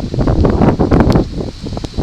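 Wind buffeting the microphone in uneven gusts, a loud low rumble that swells and drops every fraction of a second.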